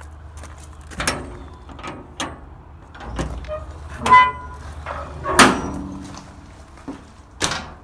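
Steel shipping-container doors being unlocked and opened: a series of metal clanks and knocks from the lock-rod handles and latches, one with a short metallic ring. The loudest clank, a little past halfway, runs into a brief creak as the heavy door swings open.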